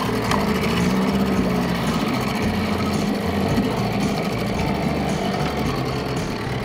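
Small outboard motor on an inflatable dinghy running steadily under way, on a test run after being repaired; it pushes the dinghy along without getting it to plane.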